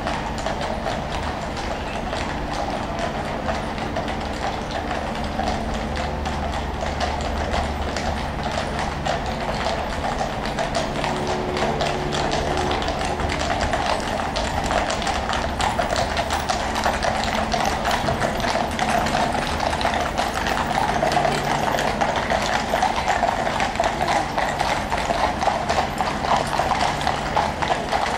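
Many shod horses' hooves clip-clopping on a tarmac road as a mounted escort and horse-drawn coaches walk past, a dense overlapping patter growing gradually louder, with a low steady hum underneath.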